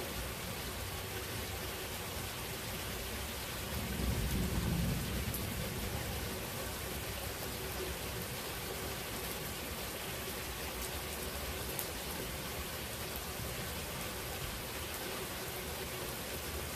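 Steady rain falling in a thunderstorm, with a low rumble of thunder about four seconds in that swells and fades over a second or two.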